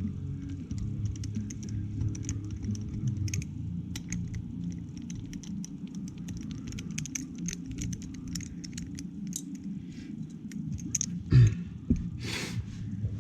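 Small metallic clicks and taps of a 3 mm Allen key turning out the small bolts of a motorcycle exhaust valve assembly, with loose parts rattling, over a steady low hum. A single loud thump comes about eleven seconds in, followed by a brief rustle.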